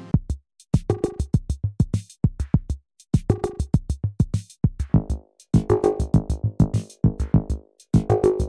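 A drum machine beat of sharp, fast hits and deep kicks, played through an Alesis Ineko multi-effects pedal. From about five seconds in, the effect gives the hits a pitched ringing tail.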